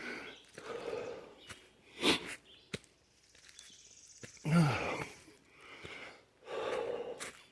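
A hiker breathing hard while climbing uphill: sniffs and forceful exhales, the strongest about four and a half seconds in with a short voiced huff that falls in pitch.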